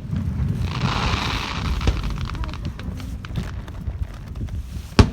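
Fireworks: a hiss about a second in, then one sharp bang near the end, over a low background rumble.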